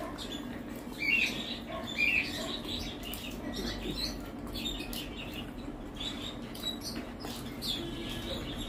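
Close mouth sounds of two people eating rice with posto by hand: wet chewing and lip smacks, with fingers squishing the rice on the plates. Two louder smacks come about one and two seconds in.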